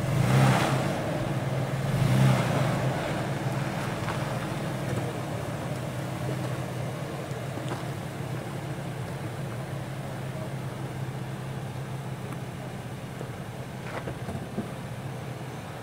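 Nissan Xterra's 4.0-litre V6 crawling up a rocky climb in four-wheel low, running at low revs with two louder swells in the first few seconds. A few sharp clicks near the end.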